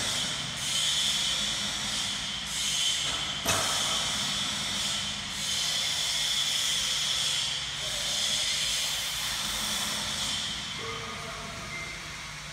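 A loud, high hiss that dips briefly every second or two, with a sharp click about three and a half seconds in; the hiss fades near the end.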